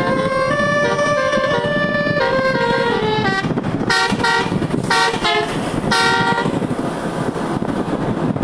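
Bus telolet horn, a set of tuned air horns, playing a stepping tune of several notes. It then gives a few short blasts about half a second apart and stops about two-thirds of the way through, leaving a steady noisy rumble.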